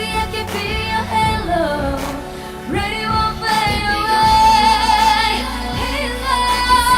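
A woman singing a pop song with instrumental backing, holding long notes over a steady low accompaniment.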